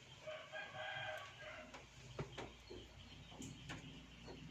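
A kitten mewing once, one drawn-out high call of a bit over a second, followed by a few faint taps.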